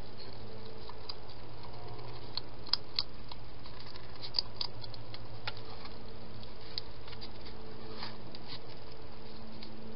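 Wild hedgehog eating: irregular small crunching clicks, a few sharper ones about three and four seconds in, over a steady low hum.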